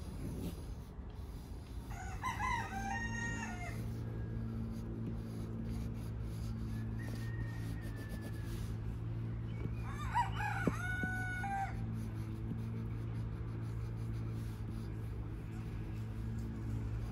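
A rooster crowing twice, each crow lasting under two seconds and the second about eight seconds after the first, over a steady low hum.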